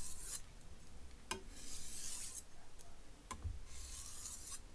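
Kitchen knife blade drawn lightly across an 800 whetstone in single stropping strokes: three soft scraping hisses about two seconds apart, each starting with a light tap as the blade is set on the stone. The stropping deburrs the edge.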